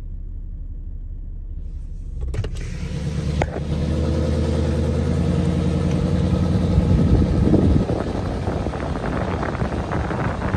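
Truck engine running on the move, a low rumble that rises about two seconds in to a steady engine hum with road noise, turning rougher near the end.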